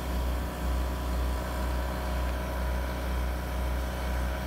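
Generator and air compressor running steadily with a low engine hum, powering an oxalic acid vaporizer during a hive treatment.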